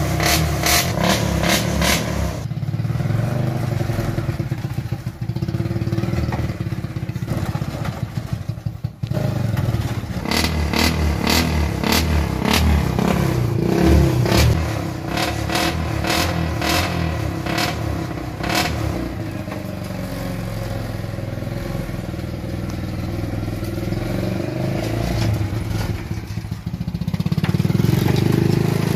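Small petrol engine of a homemade mini vehicle running as it drives over bumpy yard ground, with its sheet-metal body rattling and clattering.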